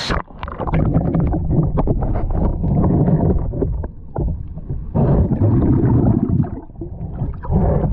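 River water splashing and sloshing close to the microphone as someone swims, heard dull and muffled, with irregular surges and small knocks.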